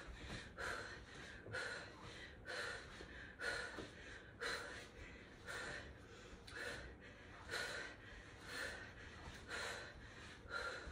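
A woman breathing hard in short, sharp breaths, about one a second, out of breath from mountain climbers.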